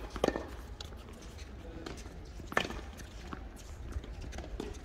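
Sharp knocks of a tennis ball on rackets and the hard court during a rally: a close pair just after the start and a louder single knock about two and a half seconds in.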